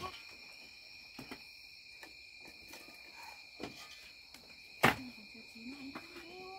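A steady chorus of insects chirring in several high tones, with a few faint clicks and one sharp knock about five seconds in.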